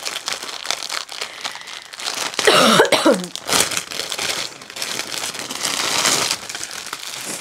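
Plastic packets of resin diamond-painting drills rattling and crinkling in their plastic wrapping as the bundle is handled, a steady crackle of small clicks. A brief throat sound about two and a half seconds in is the loudest moment.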